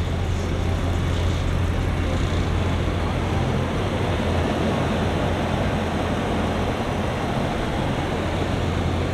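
Car audio subwoofers (four 12-inch, two 15-inch and one 18-inch) playing a steady low bass tone, heard from outside the car over a steady noisy hiss. The tone shifts slightly about four seconds in.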